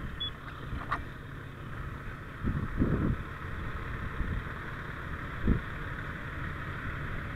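A fire engine's motor running steadily while a hose line is laid out, with a few low thumps partway through.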